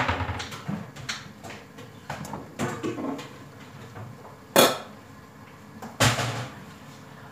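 Kitchen clatter: a series of sharp knocks and clanks, the loudest at the start, about four and a half seconds in, and about six seconds in.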